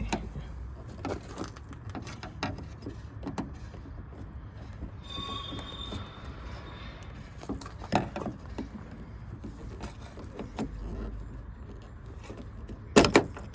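Hard plastic and metal clicks, knocks and rattles as a 2005–2010 Hyundai Sonata exterior door handle is worked loose from the door by hand. There is a loud double knock near the end.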